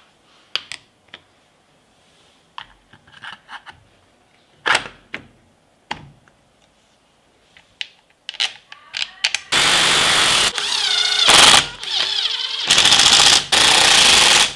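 Sharp clicks and knocks of plastic and metal parts being handled and snapped into place on a demolition hammer's housing. Then a loud power-tool motor runs in three long bursts with a wavering whine, and it cuts off abruptly.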